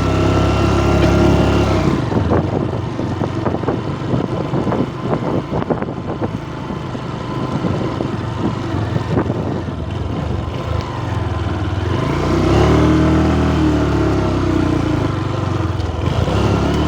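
Honda Verza 150's single-cylinder engine running as the motorcycle is ridden, with a jumble of knocks and rattles through the middle. Near the end the engine pitch rises and falls as it revs.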